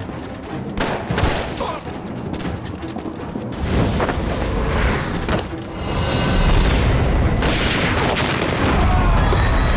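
Gunfire and explosions: a rapid run of sharp shots, then heavy booms whose deep rumble builds and is loudest near the end, with music underneath.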